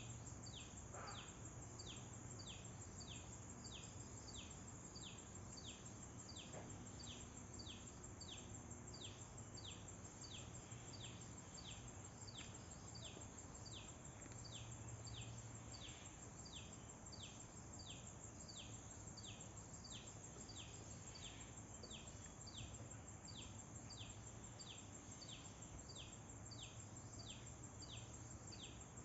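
Faint nature ambience: a bird repeats a short, falling chirp about twice a second over a steady high-pitched insect drone and a low hum.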